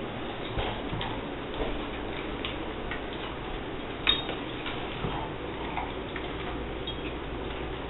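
Irregular clicks and knocks from a kibble-filled rubber Kong Genius Leo treat toy as a dog pushes it around a wooden floor, with one louder knock about four seconds in, over a steady hiss.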